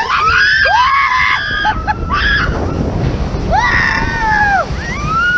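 Several riders screaming together on a log flume ride as the boat drops, in long rising-and-falling cries with a second wave about three and a half seconds in, over a steady low rush of water and wind.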